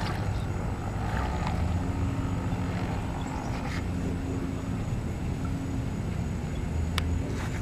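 Radio-controlled model tug boat running on the water: a steady low rumble with a faint motor hum for a few seconds in the middle, and one sharp click near the end.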